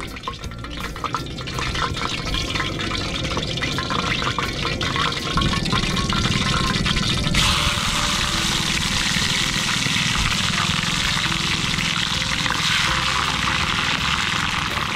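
Water being poured into a pot, with scattered clicks. From about halfway through, a steady hiss of a portable gas camp stove burner under a stainless pot of fish at a rolling boil, bubbling hard.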